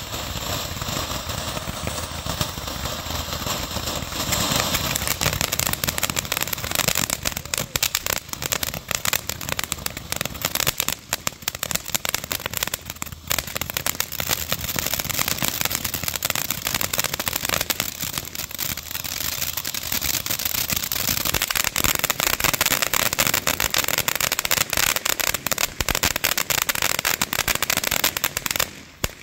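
Ground fountain firework spraying sparks: a continuous hiss laced with dense crackling, which thickens from about six seconds in.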